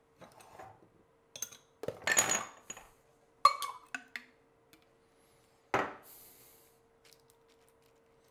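Scattered clinks and knocks of a metal spoon, a glass salsa jar and a stainless steel measuring cup as salsa is measured out and dumped onto a dish of spinach; the loudest is a knock with a short ring nearly six seconds in. A faint steady hum runs underneath.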